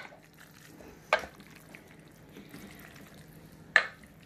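A spoon stirring chicken in barbecue sauce, knocking sharply against the side of the pan twice, about a second in and near the end.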